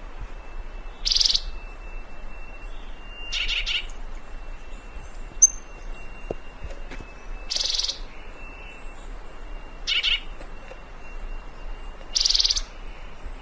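Fruterito picudo giving five short, rapidly pulsed, buzzy calls spaced two to four seconds apart, over a faint steady high whine.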